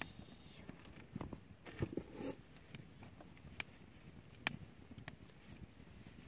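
Scattered single taps and drips, like water drops falling onto the tarp and gear in wet weather, over a faint background.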